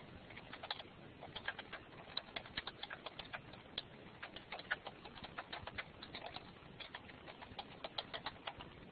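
Faint computer keyboard typing: quick, irregular key clicks, several a second, in short runs.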